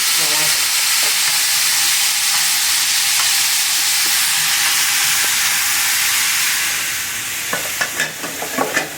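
Cooked pasta sizzling loudly in a pan of garlic browned in olive oil and butter as it is stirred. The sizzle eases near the end, with a few sharp clicks.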